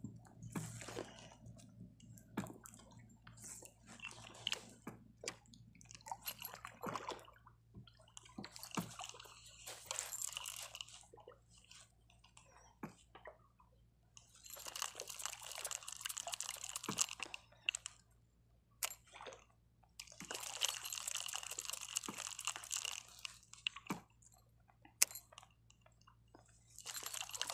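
Fugu Hikata 500 spinning reel being cranked in several gritty spells of one to four seconds as a micro jig is worked, with scattered small clicks in the quieter gaps.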